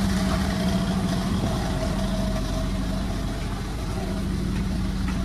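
Chainsaw engine running at a steady speed, its pitch holding even.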